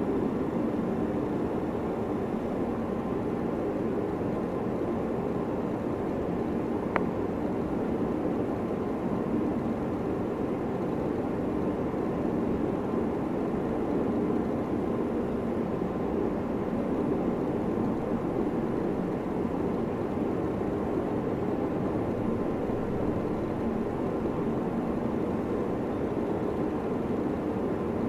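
Steady low rumbling background noise, even and unchanging, with a single short click about seven seconds in.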